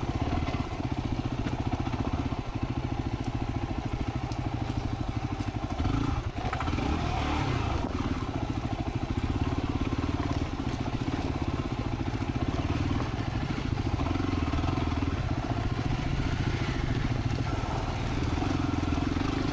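Motorcycle engine running steadily under the rider on a rocky trail, with occasional clicks and rattles as the bike rolls over stones.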